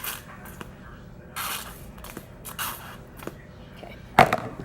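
Spoon or spatula scraping and stirring a thick glue mixture in a bowl, in short scraping strokes about a second apart, with one sharp loud knock about four seconds in.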